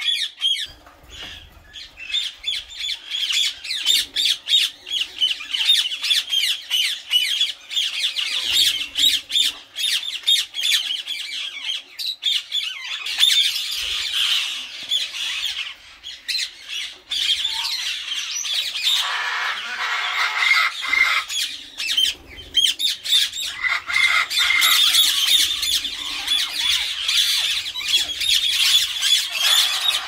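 A flock of Indian ringneck parakeets squawking, many rapid high-pitched calls overlapping without a break.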